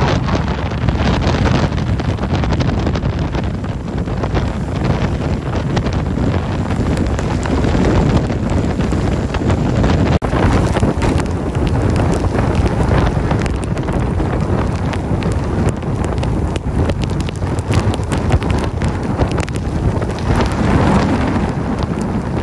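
Hurricane wind buffeting the microphone, with driving rain: a loud, steady rush of noise that drops out for an instant about ten seconds in.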